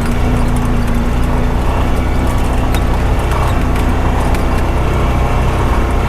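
Honda Pioneer 520 side-by-side's single-cylinder engine running steadily while under way, with scattered clicks and rattles over it.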